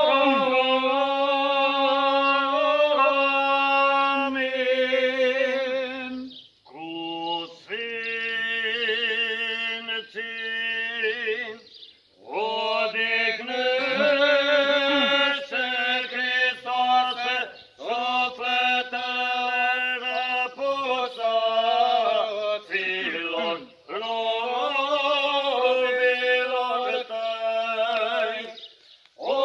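Eastern Orthodox memorial-service chant, sung in long held phrases with short breaks between them.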